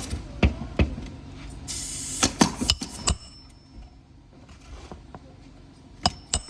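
Hammer blows driving roofing nails through a roof snake into an asphalt shingle. There are three sharp strikes in the first second, a brief scraping hiss about two seconds in, four quick strikes just after it, then a lull before two more strikes near the end.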